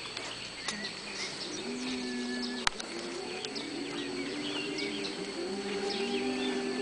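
Mixed choir humming soft, sustained chords at a few steady pitches, with pauses between the held notes. Small birds chirp throughout, and there is a single sharp click a little before halfway.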